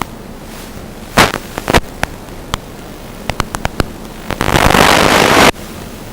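Static: a steady hiss broken by a scatter of sharp crackles and pops, then a loud rush of static about four and a half seconds in that cuts off suddenly a second later.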